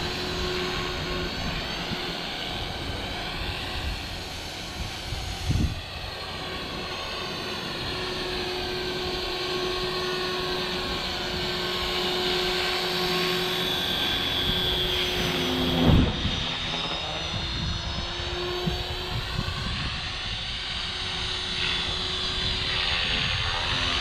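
Walkera V450D03 electric RC helicopter in flight: a steady whine from its motor and rotor that drifts slowly in pitch as it moves about, over a low rumble. There are two brief thumps, about a quarter of the way in and again about two-thirds of the way through.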